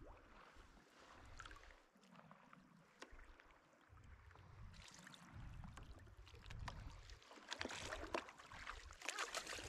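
Faint water and handling sounds on a kayak, with a low uneven rumble throughout. In the last couple of seconds there is a dense run of crackly clicks and knocks.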